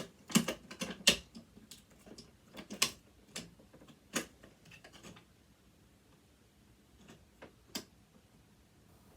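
Sharp, irregular metal clicks and taps of a hand tool working against sewing machine parts, trying to free a stuck part. They come thick in the first few seconds, then thin out to a few single clicks.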